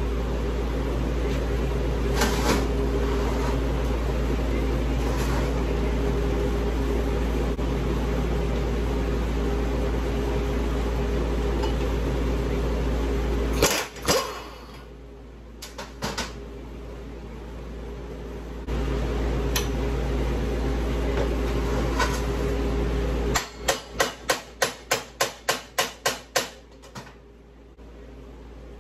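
A steady machine hum stops partway through and starts again a few seconds later. Near the end come about a dozen sharp metal blows in quick succession, roughly three a second, from hammering on a mower deck spindle (mandrel) assembly while it is taken apart.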